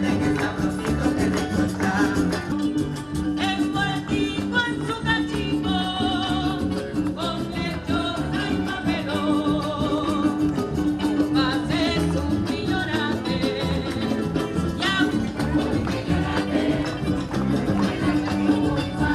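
Upbeat Latin dance music with a steady beat and a wavering melody line over it.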